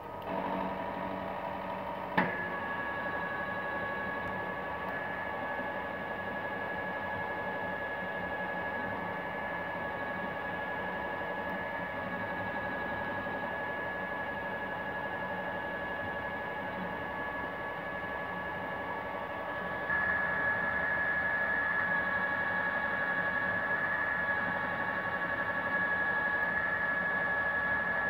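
Jori TM807A portable cylinder boring and honing machine running with a steady hum and a high whine. There is a sharp click about two seconds in, and the machine gets louder about twenty seconds in.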